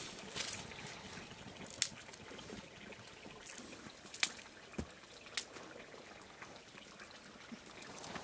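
Water trickling, with a few sharp clicks and knocks.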